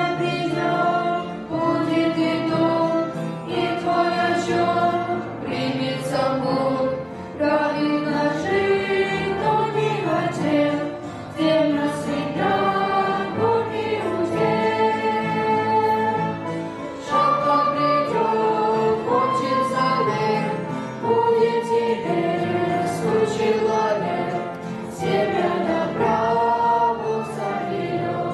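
Choir singing a hymn in Russian, several voices together carrying a slow melody.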